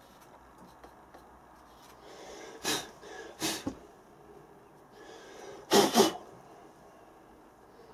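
Short puffs of breath blown onto a sand casting mould to clear loose sand from a freshly cut runner: two quick blows a few seconds in, then the loudest, a double blow, about six seconds in.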